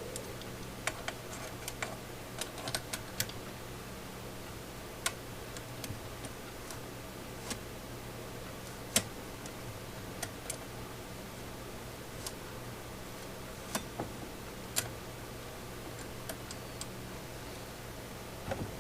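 Scattered sharp metallic clicks and ticks, one every second or few, over a steady low hum: the chainsaw's chain and the bar-mounted Timberline sharpener being handled and adjusted.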